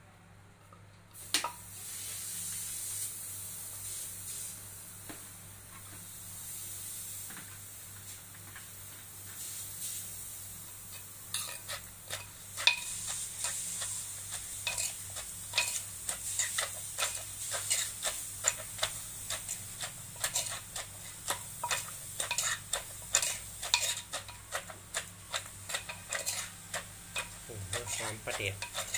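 Pestle and spoon working shredded green papaya salad in a clay mortar. A soft hiss runs for the first third, then a quick irregular run of knocks and clacks against the mortar as the papaya is pounded and tossed.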